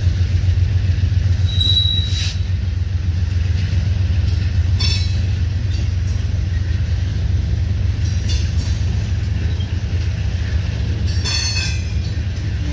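Loaded covered hopper cars of a freight train rolling past close by with a steady low rumble. Brief high-pitched wheel squeals cut in a few times, about 2, 5 and 11 seconds in.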